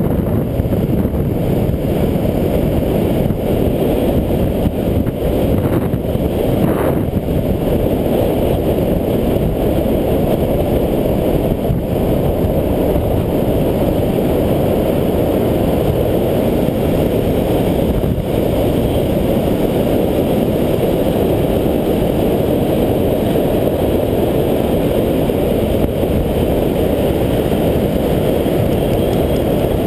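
Wind buffeting the camera's microphone as the rider bombs downhill on a longboard, mixed with the rolling of urethane longboard wheels on asphalt. The result is a loud, steady rush that holds even throughout.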